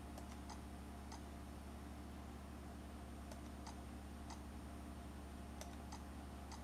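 Computer mouse clicking faintly and irregularly, several clicks coming in quick pairs, as photos are paged through, over a steady low hum.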